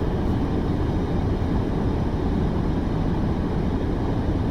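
Steady low rumble of an idling vehicle engine, even and unbroken.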